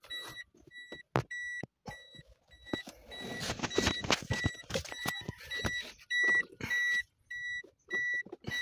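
Car's interior warning buzzer beeping steadily at one high pitch, about two beeps a second. Sharp plastic clicks and rustling come over it, busiest in the middle, as the opened-up automatic gear shifter assembly is handled.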